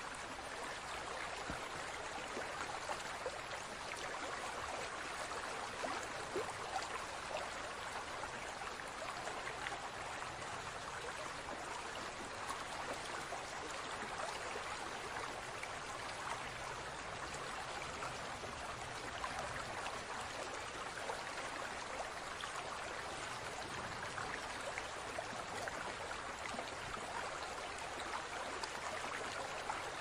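Steady running water of a small stream, trickling and splashing evenly.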